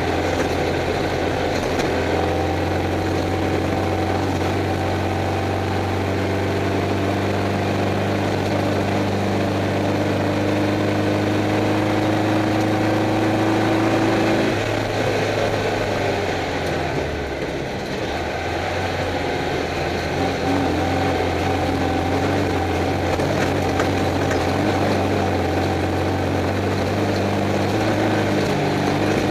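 Stock Class 11 Volkswagen Beetle's air-cooled flat-four engine running, heard from inside the car. Its pitch climbs slowly through the first half, then drops and eases off briefly before settling back to a steady note.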